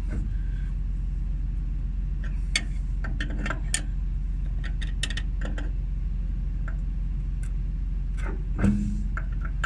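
Steel wrenches clicking and clinking on a hydraulic hose fitting as the line is tightened onto it, a few scattered sharp metal taps, over a steady low hum.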